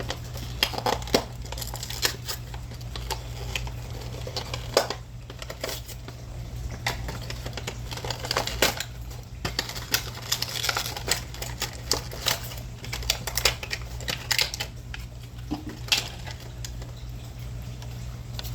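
A Majorette die-cast toy car's packaging being handled and opened by hand: irregular clicks, crackles and rustles of plastic and cardboard, over a steady low hum.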